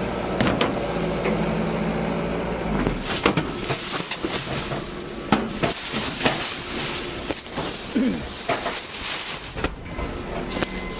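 A steady machine hum for about the first three seconds, then a run of irregular knocks and clatter as cargo is handled at the truck.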